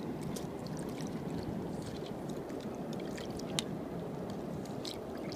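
Steady rush of seawater washing over rocks, with scattered sharp clicks and scrapes of a spoon working inside a sea urchin's shell and one louder knock about three and a half seconds in.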